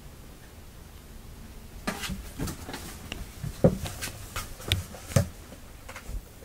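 Cardboard box being jostled by cats climbing in and pawing at it: a run of scrapes, rustles and knocks on the cardboard, the two loudest about a second and a half apart.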